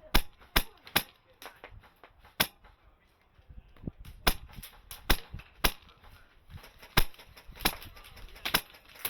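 Airsoft guns firing in a skirmish: irregular single sharp cracks, one or two a second, coming faster in the second half.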